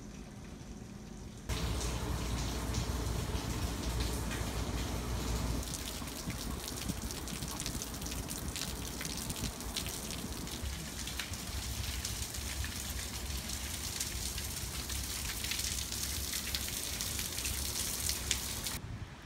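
Heavy rain pouring onto pavement and puddles, with many drops splashing and water streaming off a roof edge. Muffled for the first second and a half, then suddenly much louder, until it drops away just before the end.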